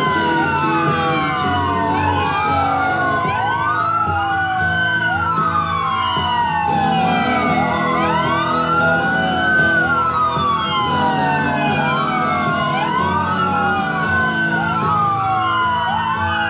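Several emergency-vehicle sirens wailing at once, their rising and falling sweeps overlapping out of step, over a low engine hum from the passing vehicles.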